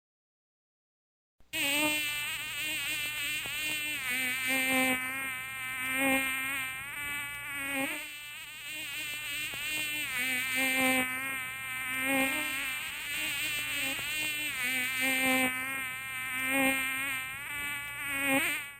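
Background music: a buzzing, wavering sustained tone over a low note pattern that repeats about every second and a half, starting after a second or so of silence.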